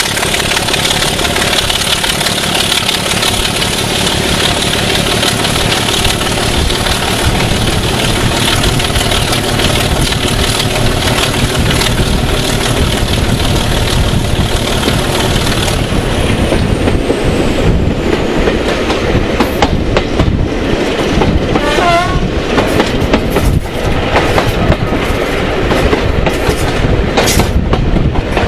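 Diesel locomotive running under power as it hauls a train, its engine sound steady with a high whine that drops away about two-thirds of the way through. Wheels clicking over the rail joints grow more prominent near the end.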